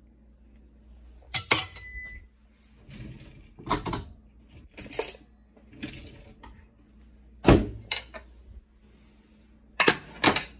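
Kitchenware being handled at the stove: about five separate clinks and knocks of dishes, pan and utensils, a couple of seconds apart, one followed by a brief ringing tone, over a faint low hum.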